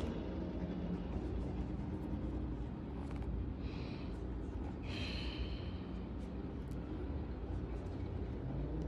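A steady low rumble of background noise, with two brief soft hisses near the middle.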